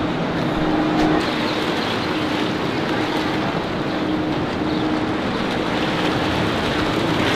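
Steady road traffic noise from a city street, an even rush of passing vehicles.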